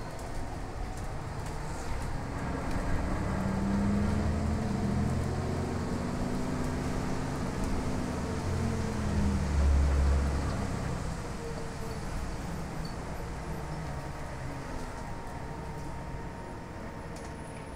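Drivetrain of a New Flyer DE60LFR diesel-electric hybrid articulated bus with an Allison EP50 hybrid drive, heard from inside the moving bus. The low drone rises in pitch a few seconds in, is loudest about ten seconds in, then eases into a steadier drone over road noise.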